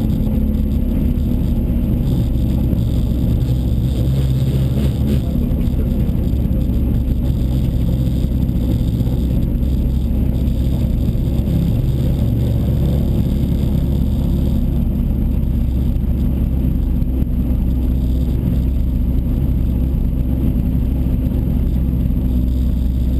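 Rally car's engine idling steadily, heard from inside the cabin as an even low hum.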